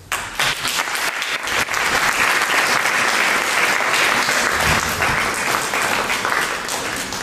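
Audience applauding: it starts suddenly with scattered claps, thickens within about two seconds into full applause, then thins out near the end.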